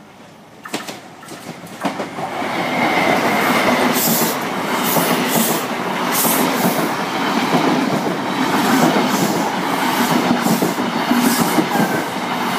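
First Great Western HST (InterCity 125) passing at close range. The class 43 power car comes in about two seconds in, then the Mark 3 coaches rumble past with repeated clacks of wheels going over the track.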